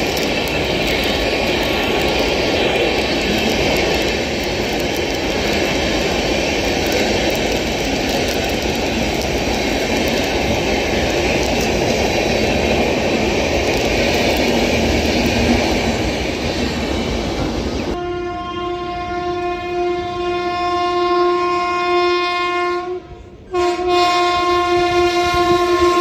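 An express train passing at speed through a station, with a dense steady rumble from its wheels and coaches. About eighteen seconds in, this abruptly gives way to a loud, long, steady train horn that breaks off briefly and then sounds again.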